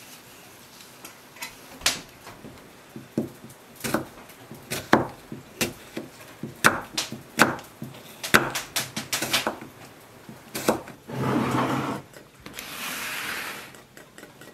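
A kitchen knife cutting apples on a wooden cutting board: a run of irregular knocks and clicks as the blade meets the board. Near the end come two longer stretches of rough scraping noise.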